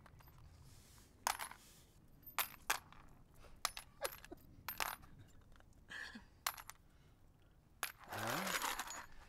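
Small metal objects clinking: about eight sharp, separate clinks with a brief ring, spread unevenly. Near the end comes a louder rustling burst of about a second with a short rising tone in it.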